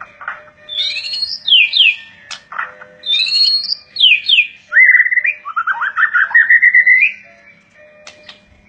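A songbird singing: two phrases of quick falling whistled notes, then a fast trill that climbs in pitch for about two seconds and stops about seven seconds in.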